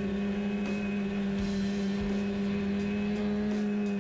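Polaris SKS 800 snowmobile's two-stroke engine running at a steady cruising speed, heard from on board the moving sled, its pitch lifting slightly about three and a half seconds in.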